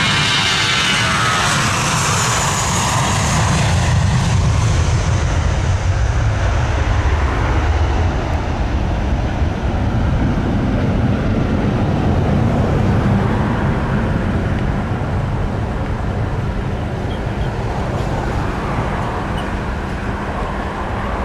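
Airbus A320's twin jet engines at takeoff power as the airliner passes and climbs away. A high whine drops in pitch over the first couple of seconds, then a heavy low rumble slowly fades.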